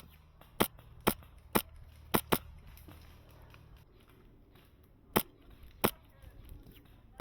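Airsoft rifle, the Wolverine MTW M4 high-pressure-air gun, firing sharp single shots: five in the first two and a half seconds, then two more about five and six seconds in.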